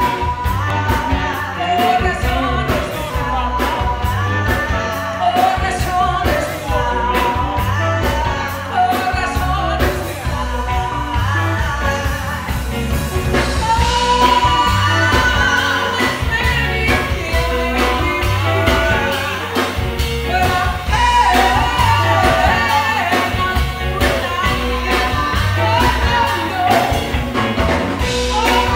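A live band playing, with a woman singing lead and a second woman singing along; drums keep a steady beat over a strong bass line.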